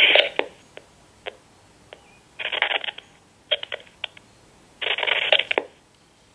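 Line audio from a Vtech 6773 5.8 GHz cordless handset breaking up at the edge of its range. Scattered clicks come first, then three short bursts of garbled, thin telephone sound separated by dropouts: the signal is nearly lost.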